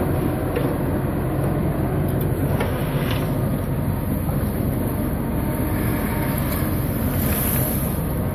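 Mobile excavator's diesel engine running steadily under load, with a few short clanks of the machine working in the first few seconds.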